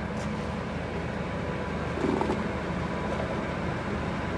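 Dean Smith & Grace Type 21 heavy-duty lathe running, its motor and geared headstock giving a steady hum with a faint steady whine above it.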